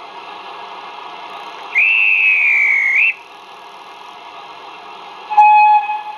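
Model steam locomotive's DCC sound decoder (Tower Models Hudswell Clarke saddle-tank sound on a LokSound v4), played through small speakers in the model: a steady steam hiss, with one whistle blast of about a second that wavers slightly in pitch. Near the end comes a brief, louder, lower tone that starts with a sharp click.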